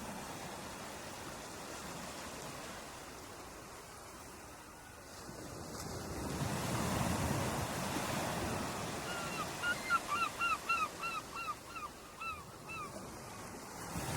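Ocean surf washing onto a shore, swelling into a louder wave about halfway through. Over it, a bird gives a run of about a dozen short, quick calls near the end.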